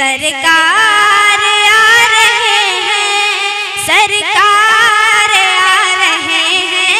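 A young girl singing a naat into a microphone, her high voice holding and bending long ornamented notes with pitch glides.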